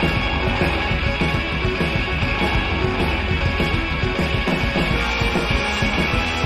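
Background music, rock-style, with a steady driving beat.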